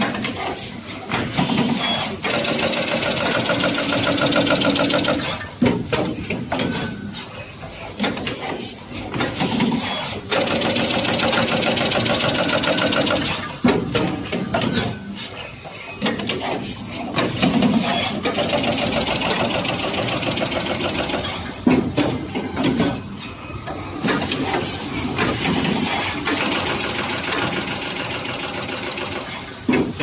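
Fully automatic wire crimping and housing-inserting machine cycling. A buzzing mechanical run of about three seconds repeats roughly every eight seconds, with sharp clicks and hissing air from the pneumatic actuators between runs.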